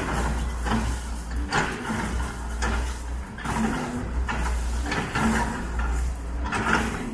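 Doosan DX140W wheeled excavator's diesel engine running steadily under load, with irregular crunches and scrapes of broken concrete and debris as its bucket works the demolition rubble, about one every second or so.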